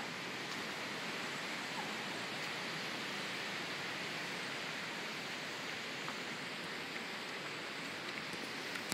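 Steady, even rushing hiss of water that does not change.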